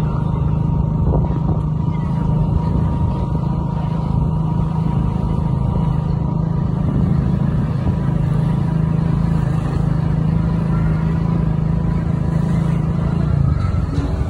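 A two-wheeler's engine running steadily at a low, even cruising speed, heard from the rider's seat.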